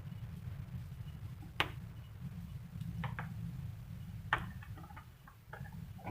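A few sharp clicks and knocks over a steady low rumble; the two loudest come about a second and a half in and about four seconds in.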